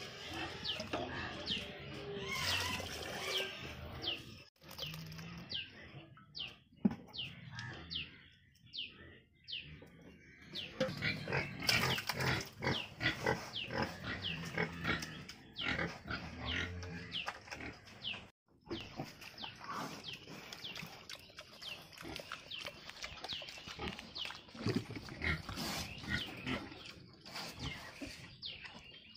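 Pigs eating wet slop from a trough: a fast, continuous run of slurping and smacking mouth sounds in the liquid feed.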